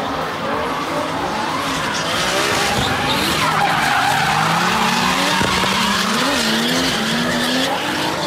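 Drift cars sliding sideways in tandem: tyres screeching under wheelspin while the engines rev, their pitch wavering and climbing through the middle. The screech is loudest a few seconds in.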